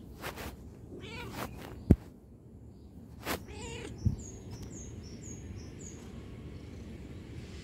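Ginger cat meowing a few short times while being stroked, with a sharp click about two seconds in and a soft thump a little after four seconds.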